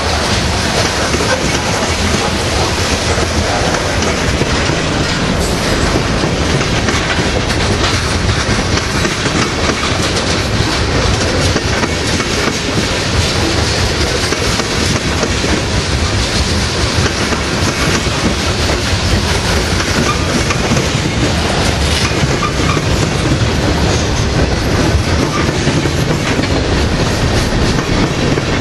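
Freight cars of a Norfolk Southern mixed freight train, covered hoppers and tank cars, rolling past close by: steel wheels clattering on the rails in a loud, steady noise.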